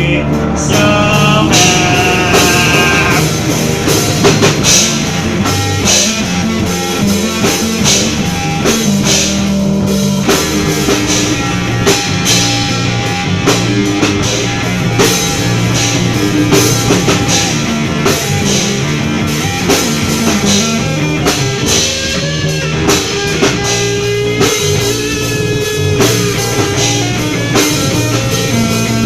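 Rock music with a drum kit and guitar playing steadily.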